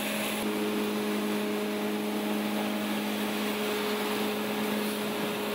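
Feed mill machinery running steadily while grain is fed into its hopper: a constant motor hum with a rushing noise over it.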